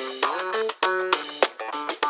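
Instrumental music: a quick run of short plucked notes with sharp starts, several of them sliding up in pitch.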